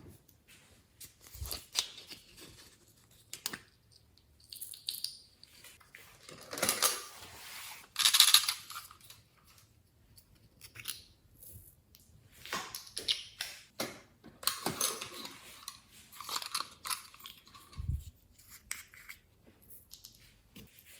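Glossy slime being squeezed and kneaded by hand, giving irregular sticky clicks, pops and squelches with short pauses between them.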